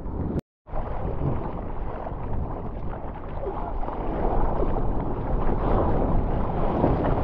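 Water splashing and sloshing as hands paddle a surfboard, heard close up, with wind buffeting the microphone. The sound cuts out completely for a moment just after the start.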